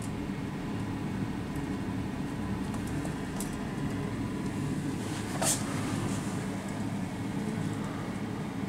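Steady low mechanical hum, with a few faint clicks and one short sharp noise about five and a half seconds in.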